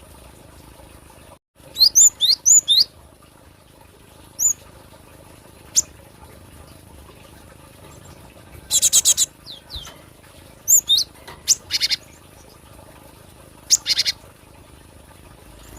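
Gelatik batu (cinereous tit) calling: clusters of short, high chirps that sweep up and down, and several harsh buzzy runs of quick notes, with pauses between them.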